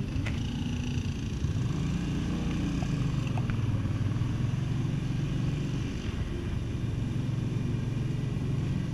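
Motorcycle engine running at riding speed, heard from the bike itself, with wind noise on the microphone; the engine note lifts briefly about two seconds in.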